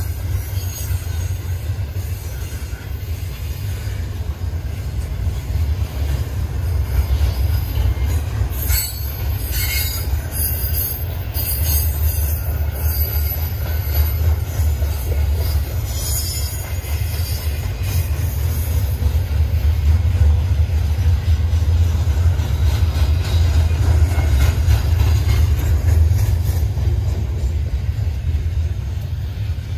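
A freight train's cars rolling past with a steady, loud low rumble, and high-pitched wheel squeal now and then, mostly in the first half.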